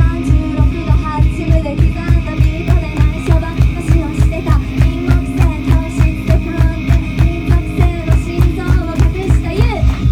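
Live music: a woman singing into a handheld microphone over a loud, fast, steady drum beat.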